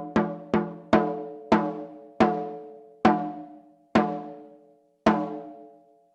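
Katsugi-oke daiko, a rope-tensioned barrel drum carried on the shoulder, struck in single hits that come further and further apart. The strokes slow from about two a second to about one a second, and each hit is left to ring out with a pitched boom.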